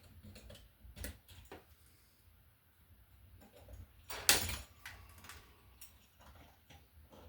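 Hand tools and wires being worked at a wall outlet box: scattered light clicks and knocks, with one louder scraping clatter lasting about half a second around four seconds in.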